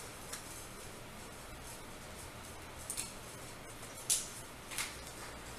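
Faint short swishes and squeaks of paper being wiped across a tablet's glass touch screen, a handful of separate strokes with the clearest about four seconds in, over a low steady hiss.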